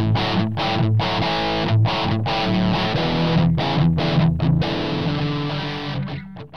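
Ibanez RG370DX electric guitar played through a Line 6 POD 2.0 amp modeller with heavy distortion. It plays a riff of dense sustained notes broken by several short, sharp stops, then thins out and fades near the end.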